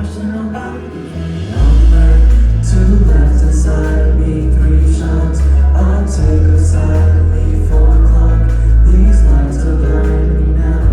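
Live band playing a pop song with singing; a heavy, loud bass comes in about a second and a half in.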